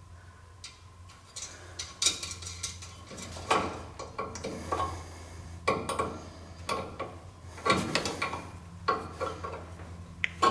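Plastic zip ties being fastened around loose plastic air-line tubing: scattered clusters of small clicks and rustling handling noise every second or two, over a faint steady low hum.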